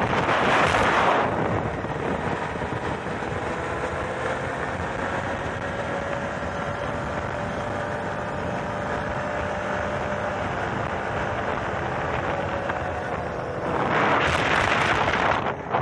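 Quad bike (ATV) engine running at steady road speed, its tone rising slightly and easing back, with wind buffeting the microphone, heaviest in the first second and again near the end.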